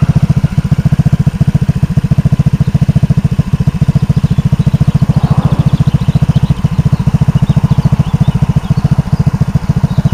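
Honda PCX 125's single-cylinder four-stroke engine idling steadily through a homemade exhaust, a loud, even train of rapid exhaust pulses.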